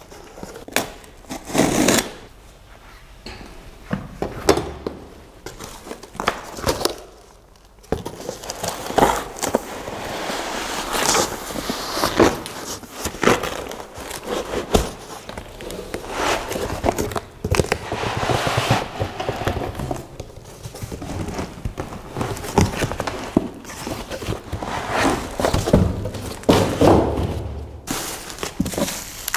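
Packaging being handled during an unboxing: a cardboard box and its flaps knocked and shifted, a foam packing sheet pulled out, and plastic bubble wrap rustling and crinkling, with many irregular clicks, knocks and thunks. The handling grows busier after a quieter stretch about seven seconds in, and the plastic crinkling comes near the end.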